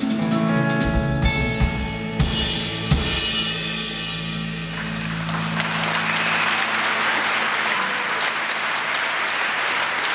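Live band's final bars: a guitar chord rings under a few drum and cymbal hits. Audience applause starts about five seconds in while the chord dies away.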